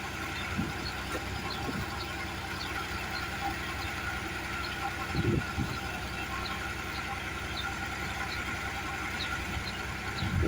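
Dexter tractor's diesel engine running steadily at idle while driving the hydraulics of a power arm being purged of air and old oil.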